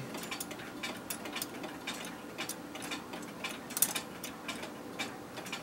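Rapid, uneven ticking and clicking from an 1889 Seth Thomas cottage clock movement as its reassembled brass wheels are turned by hand to check the train. There is one sharper click a little before four seconds.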